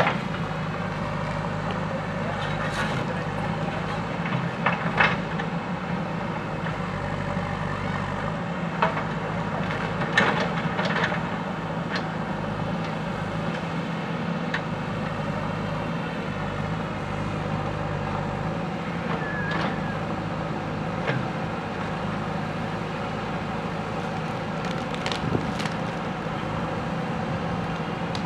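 Diesel engine of a JCB 3DX backhoe loader running steadily under work, with occasional short, sharp knocks and clanks.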